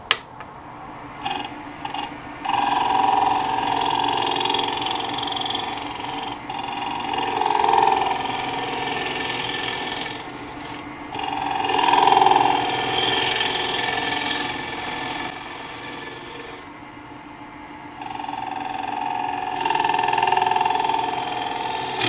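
A turning tool cutting the inside wall of a wet, green-wood bowl spinning on a lathe. It makes several steady scraping passes of a few seconds each, each with a mid-pitched ring, broken by short pauses. The wall is being thinned to even out a spot that is too heavy.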